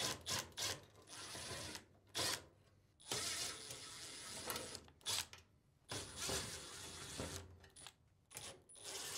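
Power screwdriver backing out sheet-metal screws from a dryer's front, running in several short bursts with a steady high whine, with small clicks between the bursts.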